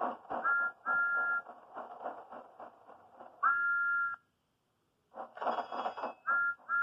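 Cartoon steam-train sound effects played back through a TV: a rhythmic chuff of about four strokes a second with short two-note whistle toots, a longer whistle about three and a half seconds in, a brief silence, then the chuffing and toots start again.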